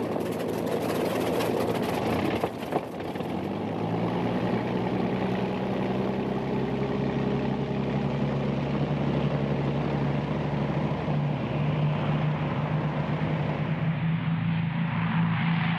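A WWII twin-engined aircraft's radial engine starting up, with a couple of sharp pops about two and a half seconds in, then running with a steady, even drone.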